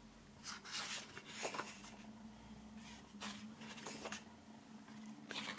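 Faint, scattered soft rustles and brushes of a hand handling the glossy pages of a large photo book, with a faint steady hum underneath.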